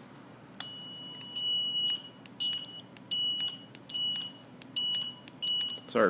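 Piezo buzzer on a 12-channel RF relay receiver board beeping while the board is being set to momentary mode: one long high beep, then five short beeps about two thirds of a second apart, with faint clicks between.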